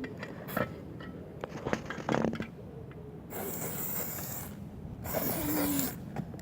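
Aerosol spray paint can hissing in two bursts: one of about a second a little past the middle, then a shorter one near the end, with a few light clicks and knocks before them.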